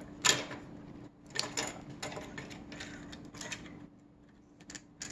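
3D printed plastic Strandbeest leg parts clicking and scraping as they are handled and pushed together, several light irregular clicks, over a faint steady hum.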